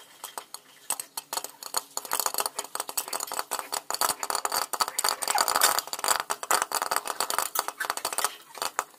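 Popcorn kernels popping in a covered frying pan, a rapid irregular crackle of pops and clinks against the glass lid. It starts sparse, becomes dense after a second or two, and thins out near the end.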